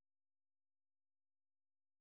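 Silence: the track holds no sound at all.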